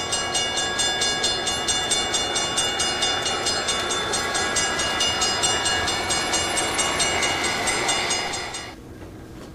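Railroad crossing bell ringing rapidly and evenly over the rumble of a passing train, cutting off suddenly near the end and leaving a faint low hum.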